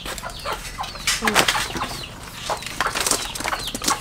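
A knife knocking and scraping on a wooden chopping block as a fish is scaled and cut, an uneven run of sharp taps. Chickens cluck in the background, with short high peeps.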